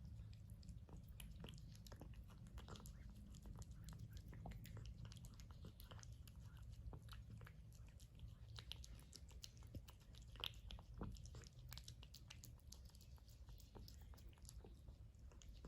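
A cat eating wet tuna in gravy: many small, irregular wet chewing clicks and smacks, with a low steady hum underneath.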